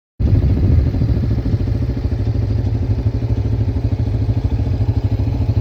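An engine running steadily with a fast, even low pulsing. It cuts in abruptly from silence just after the start.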